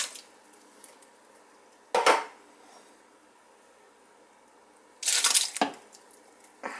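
Canned diced tomatoes emptied into a large stainless steel stockpot: a short sharp sound about two seconds in, then a wet, noisy pour lasting about half a second from a second can about five seconds in, with a brief sound near the end.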